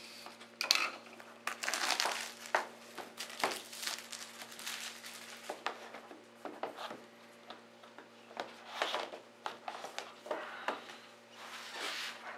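Plastic shrink-wrap being torn and crinkled, and the cardboard retail box of an iPad mini being opened and handled: irregular rustles, crackles and scrapes.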